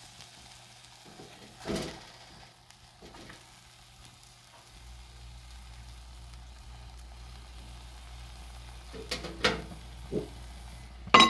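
Sweet potatoes sizzling faintly as they cook without water in a dry stone pot, with a few knocks as they are moved about. A sharp clatter of cookware comes at the very end.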